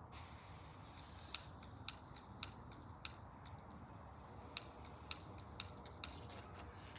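Faint, sharp mechanical clicks, about ten of them at uneven spacing, over a low steady background.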